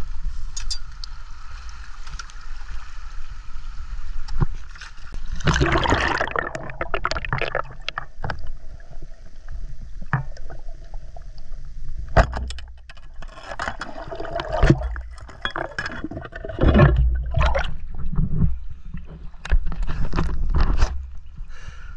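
Water sloshing and gurgling around a spearfisher moving through a river, over a steady low rumble, with scattered sharp clicks and knocks.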